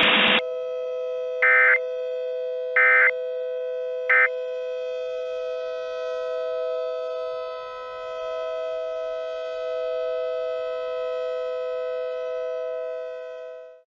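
Three short, bright data bursts, each shorter than the last, like an Emergency Alert System end-of-message code, sound over a steady two-tone electronic drone. The drone holds on and fades out near the end.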